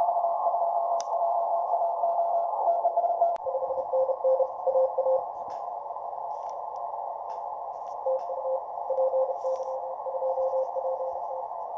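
Morse code (CW) signals from the Kenwood TS-180S receiver's speaker: a keyed single tone over a band of hiss. One station's tone runs almost unbroken until about three and a half seconds in. Then a second station comes in at a lower pitch, in two stretches of dots and dashes, received on the 20 m band.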